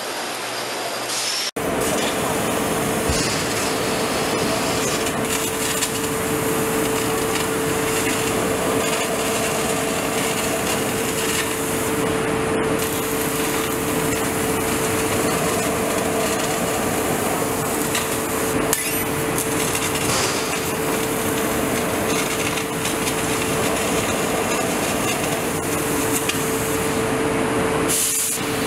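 CNC laser cutting head cutting holes and slots in a steel plate: a loud, steady hissing noise with a constant hum note underneath. It starts abruptly about a second and a half in, after a brief quieter hiss of robotic arc welding.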